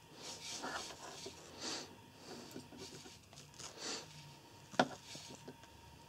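Faint rubbing and small clicks of hands working a hard plastic action figure, fitting a small white plastic accessory to it, with one sharper click nearly five seconds in.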